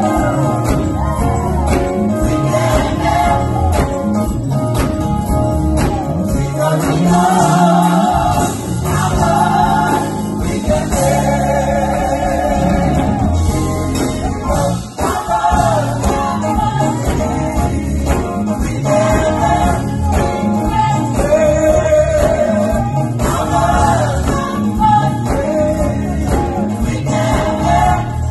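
Gospel choir singing loudly over a bass-heavy accompaniment.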